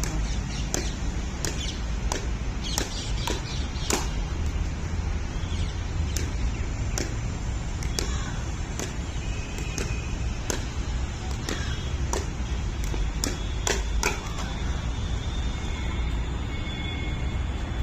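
Pickleball paddles striking a plastic ball in a quick volley exchange: sharp hits come every half second to a second, some in close pairs, over a steady low rumble.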